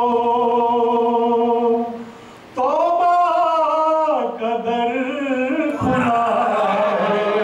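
A man singing a naat, an Urdu devotional poem in praise of the Prophet, solo and unaccompanied, holding long notes with ornamented melodic turns. He breaks off briefly about two seconds in.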